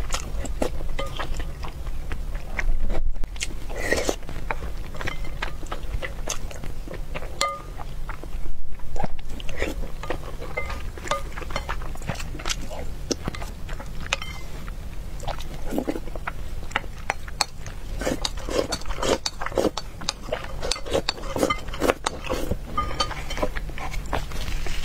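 Close-miked eating: a person chewing and biting food, with many wet mouth clicks and smacks and a couple of louder moments about three and nine seconds in, over a steady low hum.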